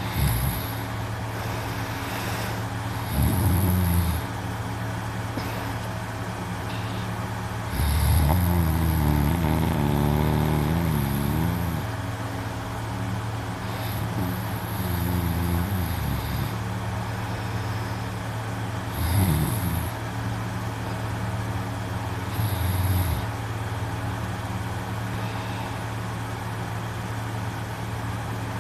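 A young man snoring in his sleep: five loud snores, one every four to six seconds, the longest drawn out for about four seconds around eight seconds in, over a steady low hum.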